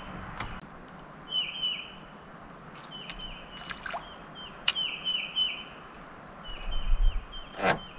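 A bird calling in short high chirps, in quick runs of three or four repeated every second or two. A few sharp clicks sound over it, the loudest near the end.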